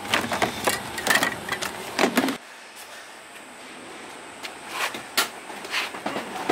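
Paint tins, brushes and spray cans clattering and knocking against each other in a plastic tote as hands rummage through them. After about two and a half seconds this gives way to a low background with a few scattered knocks of plastic crates being handled.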